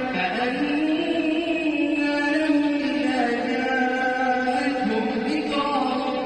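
An imam's voice chanting prayer recitation in a slow melodic line, holding long drawn-out notes that rise and fall gently in pitch.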